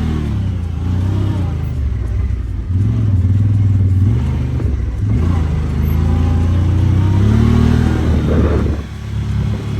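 ATV engine running and revving, its pitch rising and falling repeatedly, with a brief dip about nine seconds in.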